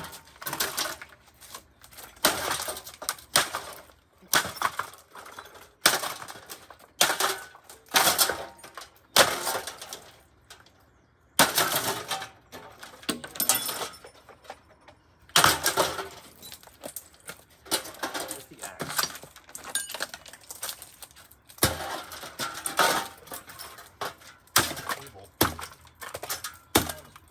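A rusty, broken Lasko 3733 box fan being smashed and torn apart by hand: repeated cracks and clatters of its plastic and metal parts breaking, in uneven bursts with a couple of brief pauses.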